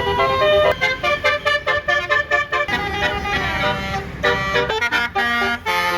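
Bus's Basuri 'telolet' musical horn playing a fast melody of short notes that jump up and down in pitch, over the low rumble of the bus engine.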